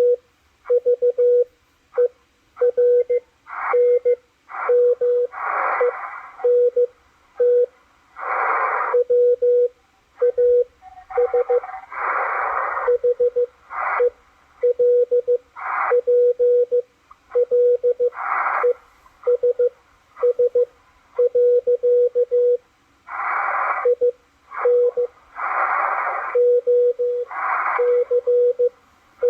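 Morse code from W1AW played through a Malahit DSP SDR receiver's speaker: a steady tone keyed on and off in dots and dashes. Wider bursts of hissing noise come in every few seconds between and over the tones.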